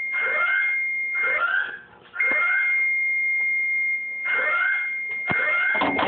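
Fire alarm buzzer sounding one steady high tone, the state of a positive alarm sequence whose pre-alarm went unacknowledged. It cuts out briefly about a second and a half in, and several short calls break in over it.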